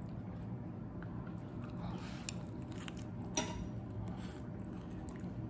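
Someone eating bún bò noodles with chopsticks: quiet chewing and mouth sounds, with a sharp click about three and a half seconds in.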